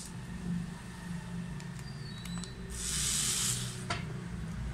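Handling noise at a workbench: a few light clicks as the motor and tools are handled, and a short hissing rustle about three seconds in, over a steady low hum.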